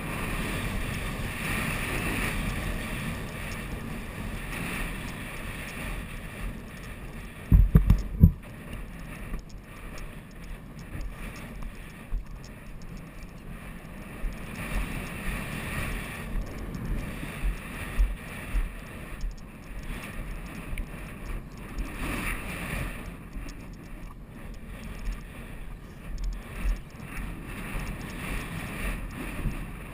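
Wind buffeting the microphone of an action camera worn by a horse rider, a steady rumbling rush, with irregular low thuds from the horse's movement underneath. A short cluster of loud knocks comes about eight seconds in.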